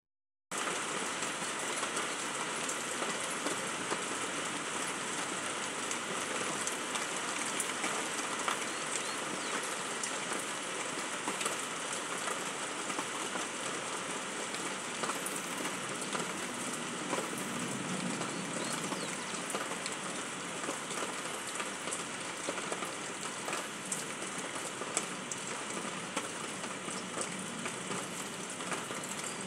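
Steady rain falling on a grassy yard, an even hiss dotted with many sharp ticks of single drops landing close by.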